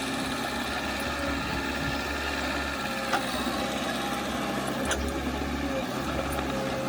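Heavy earthmoving machine's diesel engine running steadily, with two short sharp clicks about three and five seconds in.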